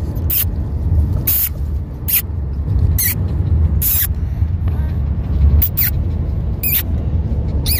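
Steady low road rumble inside a moving car's cabin, with short, sharp high squeaks about once a second.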